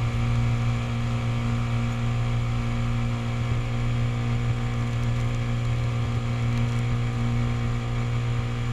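2005 Mercury 25 hp two-cylinder two-stroke outboard motor running steadily at high throttle, pushing the boat on plane.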